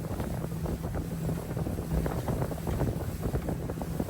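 Motorboat underway, its engine running with a steady low hum, while wind buffets the microphone with irregular rumble and crackle.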